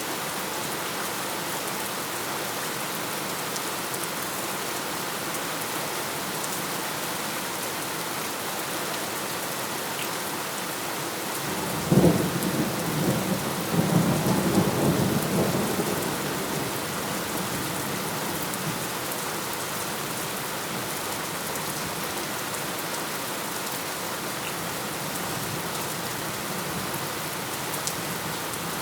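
Steady rain falling, with one thunderclap near the middle: a sudden crack followed by a rumble that swells again and dies away over about four seconds.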